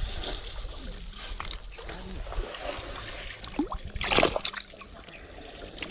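Shallow muddy river water splashing and sloshing as someone wades and handles a cast net, with one louder splash about four seconds in.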